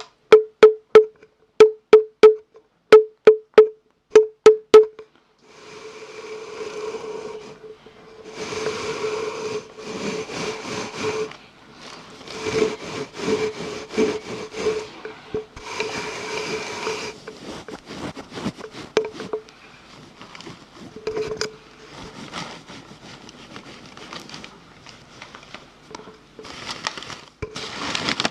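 ASMR mouth sounds close to the microphone. For about the first five seconds it is a run of very loud, sharp clicks, mostly in pairs. Then come longer stretches of rustling, hissing mouth noise broken by short clicks.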